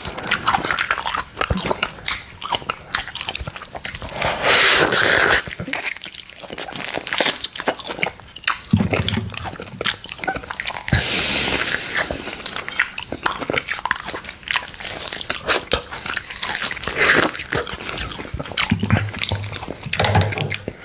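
Close-miked wet mouth sounds of eating orange and licking it off a glass plate: many chewing clicks and smacks, with two longer hissing stretches about four and eleven seconds in.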